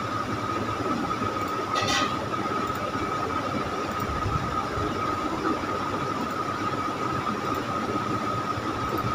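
Steady background hiss with a constant high-pitched whine, the recording's room and microphone noise, with one brief click about two seconds in.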